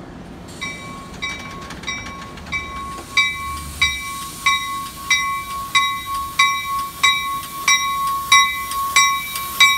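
A railroad warning bell ringing at an even pace, about three strikes every two seconds, starting just under a second in, over the low rumble of a New Jersey Transit commuter train pulling out of the station.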